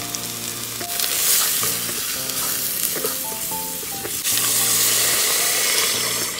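Sliced onion, garlic, ginger and kurma spices sizzling in hot oil in the non-stick inner pot of a Philips electric pressure cooker on sauté mode, stirred with a wooden spatula. The hiss grows louder about four seconds in, as water is poured into the hot pot.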